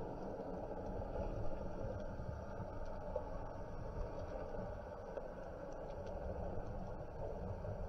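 Muffled underwater ambient noise picked up by a camera underwater: a steady low rumble with a few faint scattered ticks.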